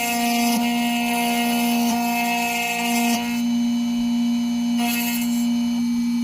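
Xhorse Dolphin key-cutting machine running its cutter motor with a steady whine while milling the cuts into a Toyota TOY40 key blade, with a high hiss of the cutter in the metal that eases a little after about three seconds.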